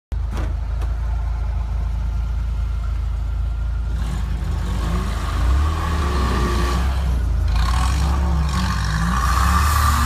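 Engine of a solid-axle-swapped Toyota 4Runner buggy on 37-inch Bogger tyres, driving through snow, its revs rising and falling, getting louder about five and a half seconds in.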